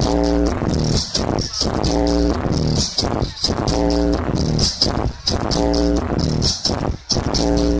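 Electronic dance music played loud through a large carnival sound system: a pitched synth figure repeating about once a second over heavy steady bass.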